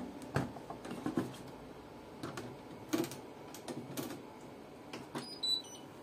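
Clicks and knocks from handling the door of a Hotpoint Ariston front-loading washing machine: the door being swung and latched shut, with a brief high electronic chirp near the end.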